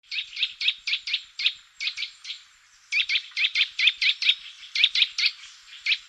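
Eurasian nuthatch calling: a rapid series of short, piping whistled notes, about four a second, in two runs with a brief pause near the middle.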